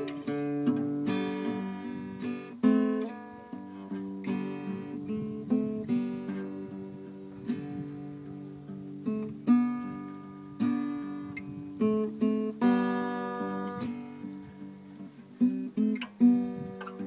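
Acoustic guitar music: plucked notes and strummed chords, each struck and left ringing to fade.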